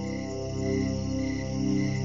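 Ambient relaxation music: a steady low drone with sustained, slowly swelling tones, with crickets chirping in a steady rhythm alongside.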